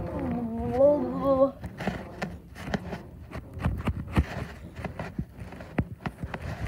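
A child's wordless voice, a gliding hum-like sound, for about the first second and a half, followed by a run of soft knocks and rubbing as the phone is handled and moved.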